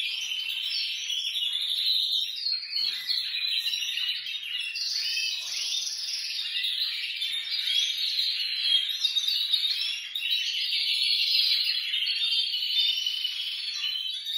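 Many domestic canaries, mostly red-factor, singing together in a dense, continuous chorus of overlapping high trills and chirps. The birds are coming back into song.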